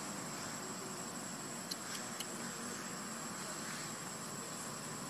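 Outdoor tree-canopy ambience: a steady, high insect drone over a low background hum, with two short clicks about two seconds in.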